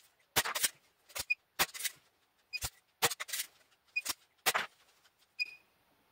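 Buttons on an airgun chronograph clicking as its stored shot readings are stepped through: about a dozen sharp clicks, often in pairs, several with a very short high electronic beep.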